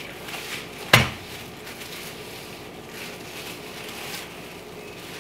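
Plastic wrap rustling and crinkling as a sheet of cookie dough is lifted and turned on it, with one sharp tap about a second in.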